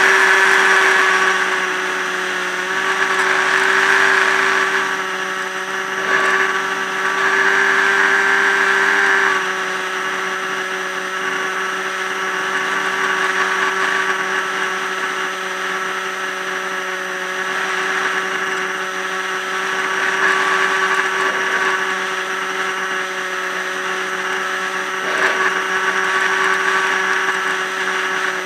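Electric motor and pusher propeller of a Multiplex EasyStar RC plane running steadily in flight, a constant whine with many overtones, heard from a camera mounted on the plane over the rush of air. The sound swells and eases a few times as the plane flies.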